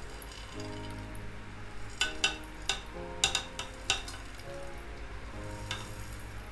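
Glass beaker clinking and tapping against the rim of a small ceramic crucible as dried gold powder is shaken out of it, with a light gritty scraping; the sharp taps cluster in the middle, about half a dozen of them. Soft background music with held notes runs underneath.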